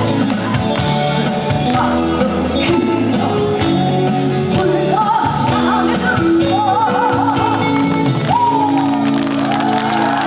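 Live trot song: a band accompaniment with a steady drum beat, and from about halfway a woman's voice singing a melody with heavy vibrato.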